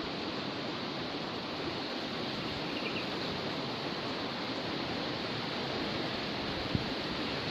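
Steady rush of a river running high and fast with floodwater, an even hiss without pauses. A single brief knock sounds near the end.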